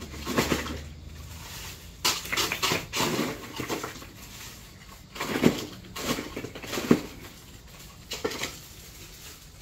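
Ice being scooped and stirred inside a plastic insulated ice chest: several irregular bouts of clattering and scraping.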